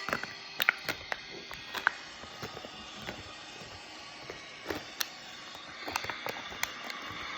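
Recorded goal-horn clip playing through a device's speaker: the steady horn cuts off right at the start, leaving a low hiss with scattered sharp clicks and knocks, busier near the end.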